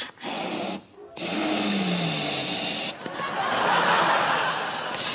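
Helium hissing from a disposable balloon canister's valve into a latex balloon as it inflates: a short burst, a brief stop about a second in, then a long steady hiss.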